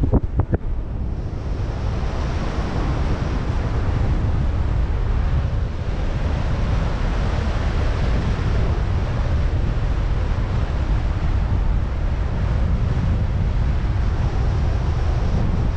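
Wind rushing over the microphone of a paraglider in flight: a steady rumbling noise, heaviest in the low end, with a few short knocks in the first half second.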